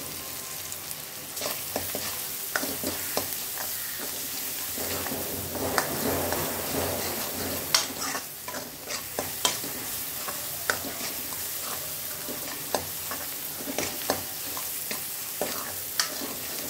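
Chopped onion and green chillies frying and sizzling in a metal kadhai while a steel ladle stirs and scrapes them around the pan, with frequent short clicks and taps of the ladle against the metal over a steady sizzle.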